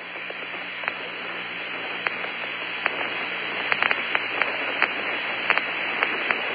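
Open radio channel of the Apollo 16 lunar surface communications link: steady hiss and static with a low hum, crackling with scattered clicks that come more often in the second half.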